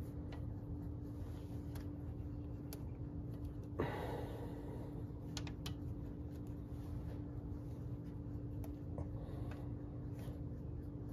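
Faint clicks and light scraping of a flexible magnetic pickup tool being worked up through the bottom of a Ford Y-block engine, its large magnet catching on the crankshaft throws, with one brief louder scrape about four seconds in. A steady low hum runs underneath.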